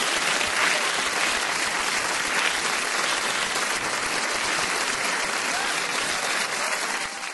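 Studio audience applauding, a dense, steady clapping that drops away at the very end.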